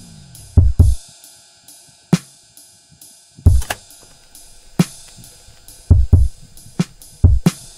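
Background music: a drum kit playing a beat of kick, snare and steady hi-hat, with a low note sliding down and fading out in the first half-second.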